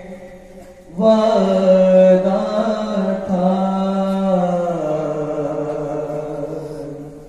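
Unaccompanied male chanting of an Urdu nauha, a Shia lament: after a short pause, one long drawn-out phrase begins about a second in, with held notes, its pitch falling in the second half and fading near the end.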